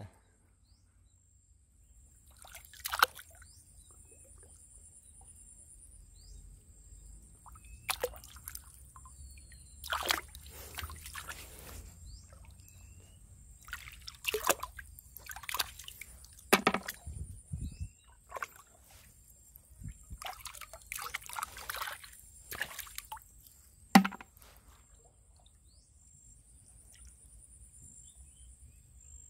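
A hand sloshing and splashing in shallow, muddy river water while groping through the mud for small freshwater clams, with irregular splashes and drips. The sharpest splash comes late on.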